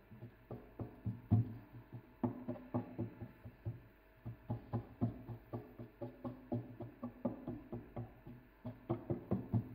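A fork pricking thin rolled dough on a parchment-lined metal baking tray: a quick, uneven run of light knocks, about three a second, as the tines jab down onto the tray.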